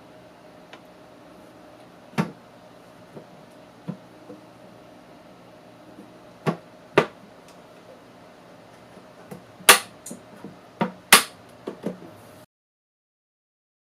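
Scattered sharp clicks and knocks of small objects being handled on a workbench, coming thicker and louder toward the end, over a faint steady hum. The sound then cuts to dead silence.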